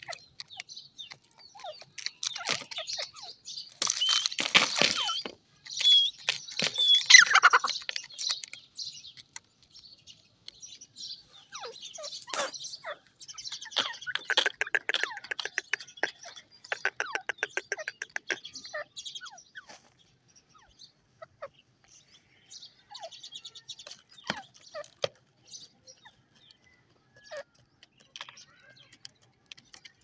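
Grey francolin calling in bouts of high, chirping calls, the loudest about seven seconds in. A fast run of clicking notes follows in the middle, and scattered short ticks and softer calls come after it.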